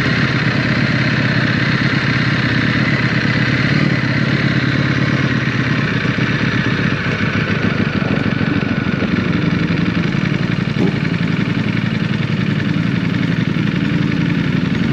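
Sport motorcycle engine running steadily while being ridden.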